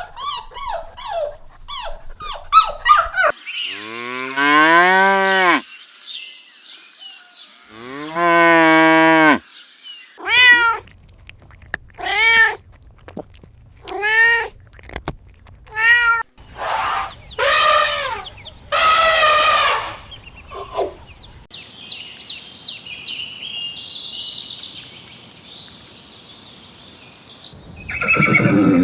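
Farm animal calls one after another: a few quick barks at the start, two long, low, drawn-out calls, then a string of shorter, higher calls, with faint high chattering near the end.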